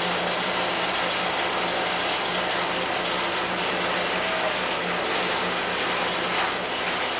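Williams laboratory hog (a hammermill shredder) running loudly while mixed waste (plastics, paper, glass and metal) is fed into its hopper: a steady machine din with a low hum and a few faint knocks near the end.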